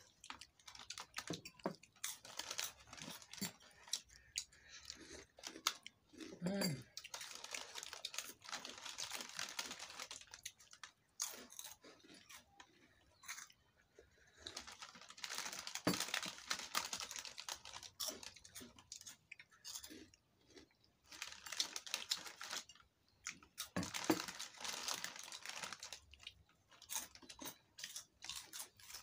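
Handling and eating at a table: crinkling of plastic snack sachets and chewing, in irregular clusters of small clicks and rustles. A short low vocal sound comes about six and a half seconds in.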